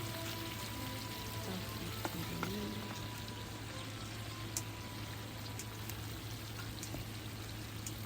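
Food sizzling and crackling in a hot pan, a steady frying hiss dotted with small pops.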